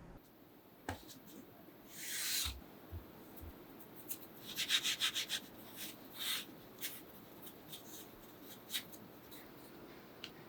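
Hands working fresh pasta dough and flour, rubbing and brushing: a swish about two seconds in, then a quick run of short scraping rustles around the middle, with a few light ticks.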